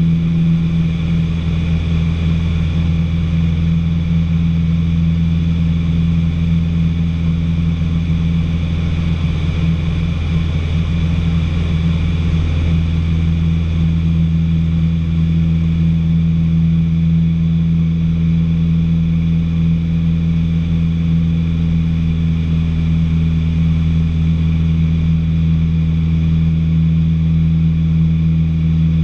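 Light training aircraft's piston engine and propeller droning steadily at constant power, heard inside the cockpit.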